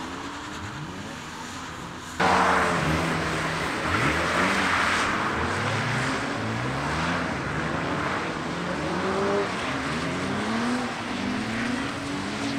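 Drift cars on track: engines revving up and falling back again and again over a hiss of tyre noise. Louder and closer from about two seconds in.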